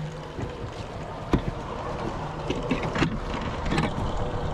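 Wind on the microphone and water around a fishing boat's hull at sea, with knocks and rubs from handling the camera, the sharpest just over a second in.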